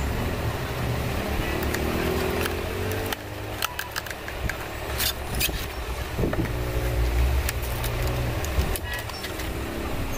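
Clear plastic blister packaging clicking and crackling as it is handled, with a cluster of sharp clicks a few seconds in. Underneath runs a low pitched background sound that comes and goes in stretches of a second or two.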